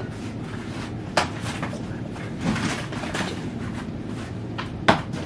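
Two sharp knocks, one about a second in and a louder one near the end, with a brief clatter between them over a low steady room hum.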